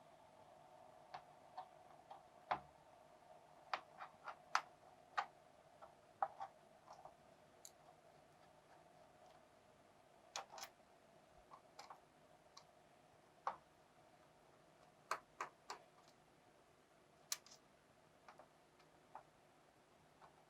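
Faint, irregular clicks and ticks from a small screwdriver and screws as the bottom-cover screws of a laptop are taken out, with a faint steady hum under them.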